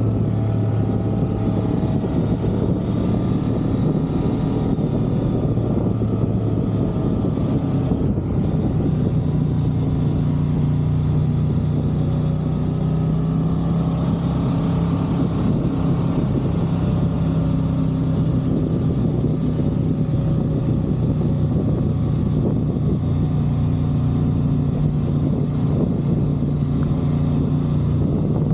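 Honda CB500X's parallel-twin engine running under way at a steady cruise, its pitch stepping up and holding higher from about nine seconds in, with wind rush on the microphone.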